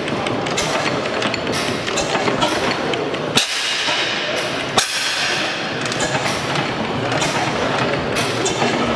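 Springfield horizontal stationary gas engine running, its valve gear and moving parts clattering with a regular knock about twice a second. The sound breaks off briefly twice a little past the middle.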